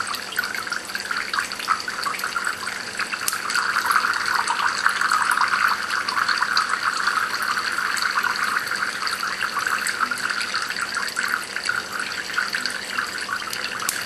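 Water streaming and dripping from two small holes into cans in a homemade Kelvin water dropper: a steady pattering splash.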